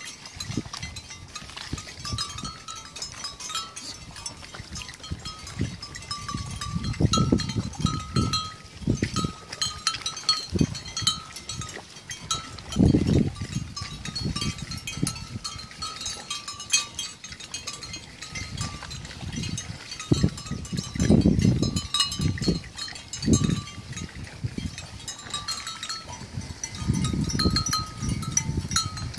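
Water buffalo grazing in shallow water close by: irregular low rustling and splashing bursts as they pull at grass and shift their feet, with a faint, wavering high tone in the background.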